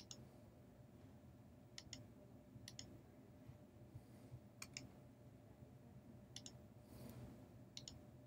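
Faint clicks of a computer pointing device's button, about six quick press-and-release pairs spaced a second or two apart, over a low steady hum.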